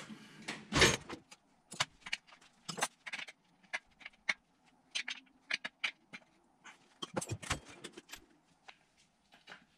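Metal hand tools and sockets clinking and knocking as they are handled, a string of separate sharp clicks with one louder knock about a second in.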